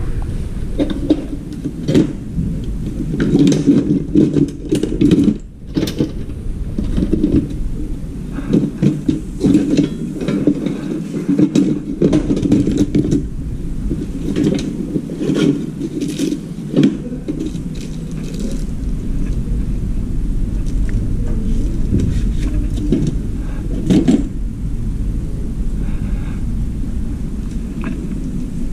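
Hand tools and equipment clattering and scraping as someone rummages through a crowded toolbox: irregular knocks and clicks over a steady low rumble, with a few louder knocks about two, five, sixteen and twenty-four seconds in.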